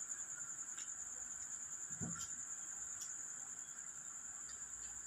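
Crickets chirping in a steady, high, pulsing trill, with a faint short sound about two seconds in.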